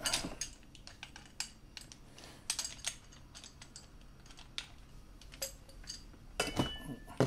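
Scattered light metallic clicks and clinks as an adjustable spanner and pipe grips are adjusted and fitted onto the threaded fittings of a diamond core drill bit.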